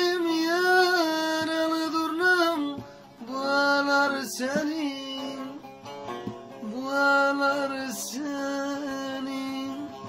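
Man singing long, held, ornamented notes of a Turkish folk song over a bağlama, in three phrases of about two to three seconds each.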